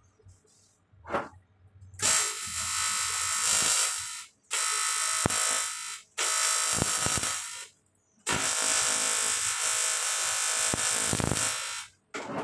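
TIG welding arc on an engine cylinder's water jacket, buzzing steadily in four bursts of one to three and a half seconds each, with short pauses between them as the welder adds filler rod.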